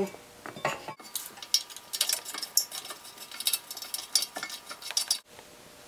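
Many light metallic clicks and scrapes: a brake caliper carrier and its bolt being handled and fitted onto the front steering knuckle of a BMW 3 Series.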